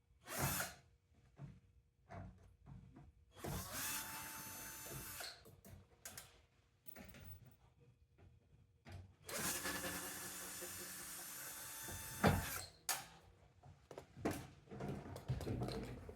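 Power drill running in two bursts, one of about a second and a half and a longer one of about three seconds, with clicks and knocks of handled parts between them and a sharp knock just after the second burst.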